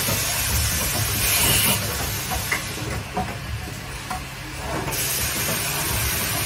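Automatic tap assembly machine running: bursts of compressed-air hiss from its pneumatic cylinders and valves, with scattered clicks and clatter from the indexing table and parts, over a steady low hum.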